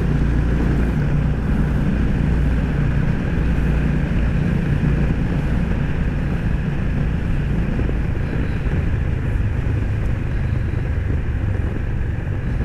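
Motorcycle engine running steadily at riding speed inside a road tunnel, under a continuous rush of noise with a steady low drone.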